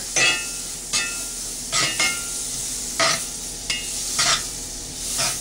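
Butter sizzling as it melts in a hot Lodge 10-inch cast iron skillet, with a metal spatula scraping across the pan bottom to spread it, in quick strokes about once a second, some with a short squeak.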